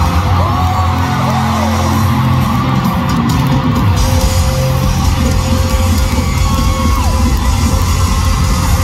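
A live pop-rock band plays loud, with drums and electric guitar, recorded from the crowd in a large hall. Voices yell over the music in the first couple of seconds.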